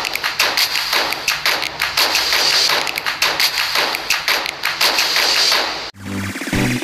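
Percussive intro sound effect: a rapid, uneven run of taps and thumps over a steady high hiss. It cuts off abruptly about six seconds in, and music begins near the end.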